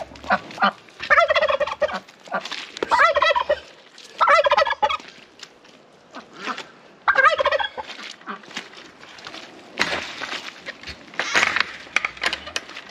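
Domestic turkey gobbling, a rapid rolling call given about four times. A short noisy burst sounds about ten seconds in.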